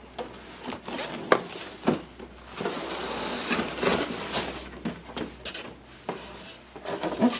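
Cardboard box being handled and opened by hand: cardboard scraping and rustling paper, with a few sharp knocks.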